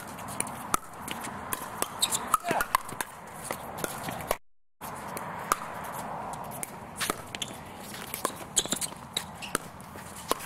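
Pickleball rally: sharp clicks of paddles striking the plastic ball, irregularly spaced, with footsteps and shoe scuffs on the hard court. The sound cuts out completely for a moment about halfway through.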